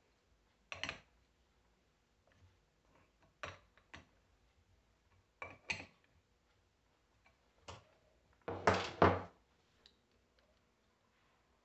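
Scattered metal clinks and knocks of a hand tool against a Prestolite starter motor's solenoid during bench work, with a louder double knock about nine seconds in.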